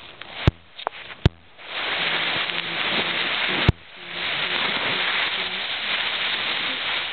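Loud rustling and scraping close to the microphone: a few sharp clicks and knocks, then a steady rustle that breaks off at a sharp knock and starts again. This is typical of a camcorder being handled or rubbed against bedding.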